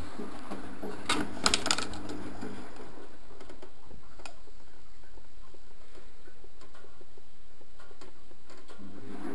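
Antonio Merloni EBD Classic 1000 washing machine in a vinegar descaling wash: its drum motor hums steadily, stops about two and a half seconds in as the drum pauses between tumbles, and starts again near the end. A quick cluster of clicks and knocks comes about a second in, and a few plastic clicks come near the end as the detergent drawer is pulled open.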